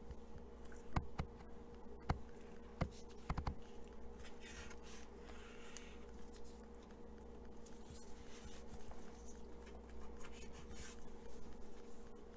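Kitchen knife cutting fat from raw chicken skin on a wooden cutting board: a few sharp taps of the blade against the board in the first few seconds, then soft scraping and slicing. A steady buzzing hum runs underneath.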